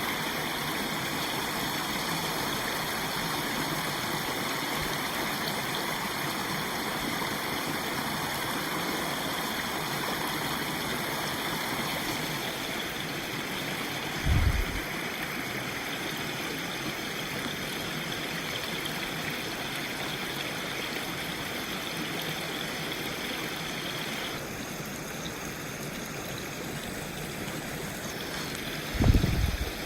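Steady rush of water running through a beaver dam, with two brief low bumps, one about halfway through and one near the end.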